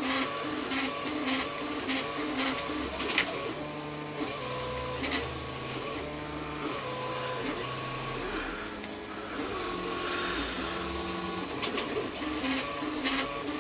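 A 3D printer at work, its stepper motors sounding short held tones that jump from pitch to pitch every half second or so. Sharp clicks of 3D-printed plastic parts, bolts and an Allen key being handled come in the first few seconds and again near the end.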